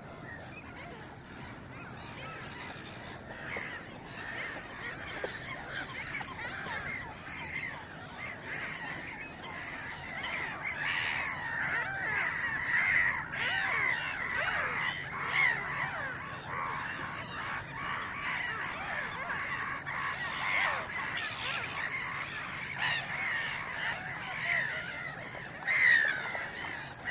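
Many birds calling together in a dense, overlapping chorus of short calls, growing louder about ten seconds in.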